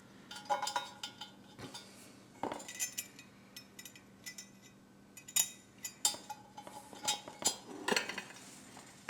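Metal parts of a fireplace tool set clinking and knocking against each other at irregular moments as they are handled and fitted together.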